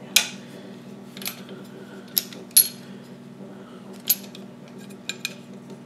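Sharp clicks and clacks of an airsoft rifle's parts and small tools being handled on a wooden tabletop, about seven in all, the loudest just after the start and about two and a half seconds in.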